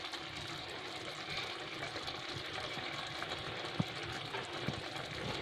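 Curry gravy simmering in a pan: a steady soft bubbling hiss, with a couple of faint clicks about four seconds in.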